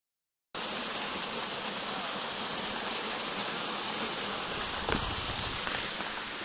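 Small waterfall splashing down a rock face: a steady rush of water that starts about half a second in and grows a little fainter near the end. A couple of light knocks come about five seconds in.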